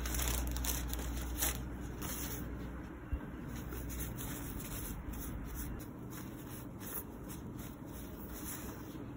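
Close rustling and rubbing as hands handle a sleeping newborn Pomeranian puppy against fabric and wipe its face with a tissue, with many short, sharp scratchy swishes.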